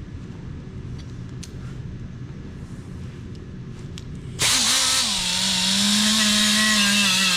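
Low background rumble with a few faint ticks, then about halfway through a pneumatic 3-inch air sander starts up on the aluminum wheel and runs loudly with a steady whine that wavers slightly in pitch.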